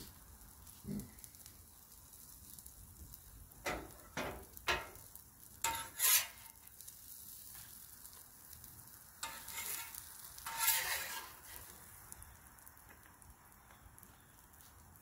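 Hash browns and eggs sizzling on a Blackstone flat-top griddle, with a metal spatula scraping across the griddle top several times as the hash browns are scooped up, loudest a little past the middle.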